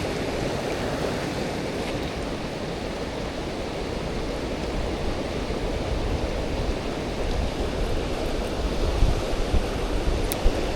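Mountain stream water rushing steadily, with low thumps and rumbles growing stronger near the end and a sharp tick at the start and near the end.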